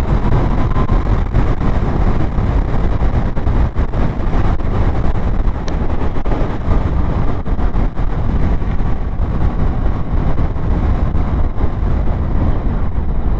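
A motorcycle riding along, with steady wind rush on the microphone over the running engine.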